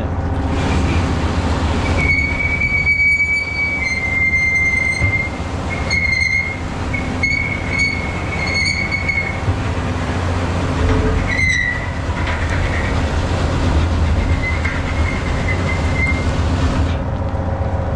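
A heavy-equipment engine drones steadily while a high metallic squeal comes and goes repeatedly, from about two seconds in until near the end.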